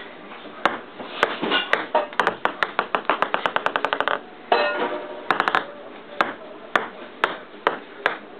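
Ping pong ball bouncing and clicking on a table top as a cat bats it about: irregular sharp taps, several of them in quick runs of bounces.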